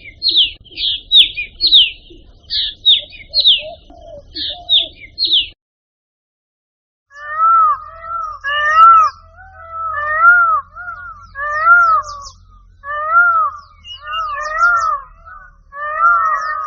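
Recorded bird calls. First a rapid series of high, sharp chirps, each sweeping downward, which stops about a third of the way in. After a short gap, a different bird gives a lower, arched call, repeated about once a second.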